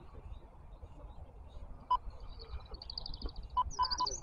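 A small songbird singing: a quick, high trill of evenly repeated notes about two seconds in, then a burst of high chirps near the end, over a steady low background rumble.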